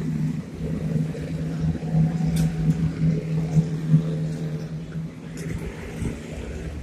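Motorcycle with a sidecar passing along the street, its engine running at a steady pitch, then fading away about five seconds in.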